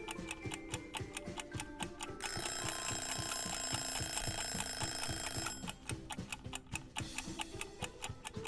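Countdown-timer sound effect: a clock ticking rapidly, several ticks a second, with an alarm-clock ring held for about three seconds in the middle.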